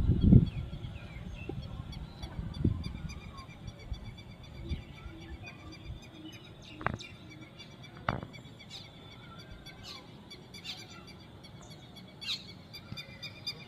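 A bird calling with a series of short, repeated chirps, over a low rumble, with a few sharp knocks.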